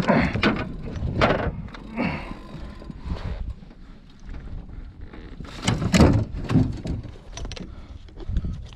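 Irregular thumps, knocks and clatter on a small fishing boat as a just-landed redfish is handled to get at the hook, loudest about six seconds in, over a steady low wind rumble.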